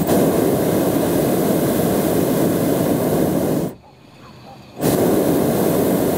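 Hot air balloon's propane burner firing in two loud blasts of rushing flame: one of nearly four seconds, then after about a second's break another that starts up again and keeps going.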